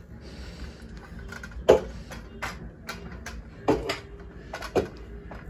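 Irregular clicks and light knocks from handling the ring light and its phone clamp, about ten in all, the loudest about two seconds in, over a faint steady hum.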